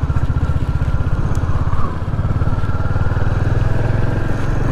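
Royal Enfield Hunter 350's single-cylinder engine running steadily as the motorcycle cruises along the road.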